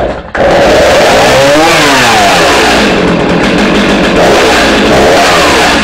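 Stihl MS 310 chainsaw's 59cc two-stroke engine catching on half choke about half a second in, then running loudly, its revs rising and falling.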